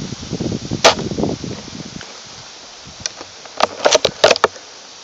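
Airsoft guns firing: a single shot about a second in, then a quick run of about six shots near the end. Wind buffets the microphone with a low rumble over the first two seconds.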